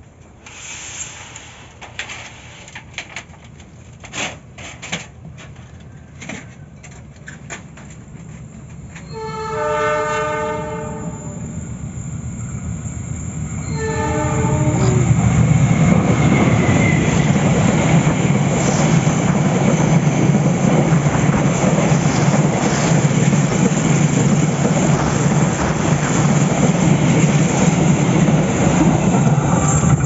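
Indonesian diesel-electric locomotive sounding its horn as it approaches: one blast of about two seconds, then a short second one a few seconds later. It then passes close by with the engine rumbling and the wheels of the passenger coaches rolling over the rails, loud to the end.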